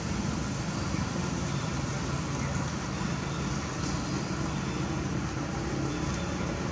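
Steady outdoor background rumble and hiss with no distinct event, of the kind distant road traffic makes.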